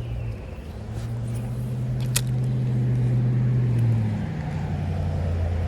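An engine's steady hum, dropping to a lower pitch about four seconds in, with one sharp click just past two seconds.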